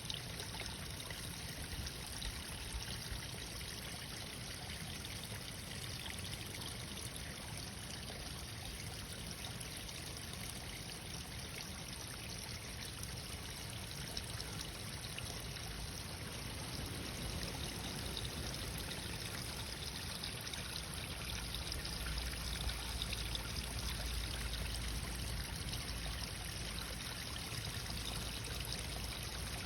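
Running water, like a small stream, flowing steadily; a low rumble grows stronger about two-thirds of the way through.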